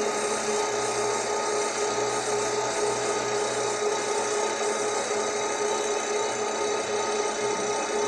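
A workshop machine running steadily, a constant whine over an even hiss with no breaks.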